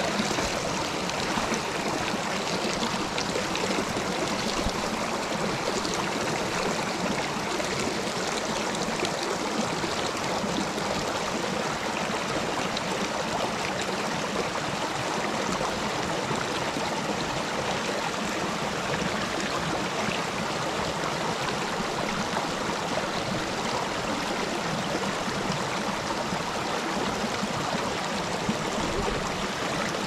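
Small rocky mountain creek flowing over stones in shallow riffles: a steady sound of running water.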